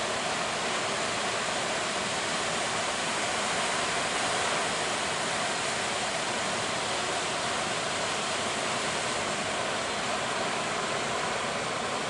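Big waves breaking and washing in: a steady rush of surf.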